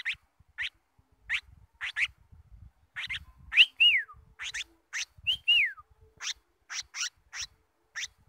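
A bulbul calling: a run of short, sharp call notes about twice a second, with two clear whistles in the middle that rise briefly and then slide down. Soft rustling of leaves underneath.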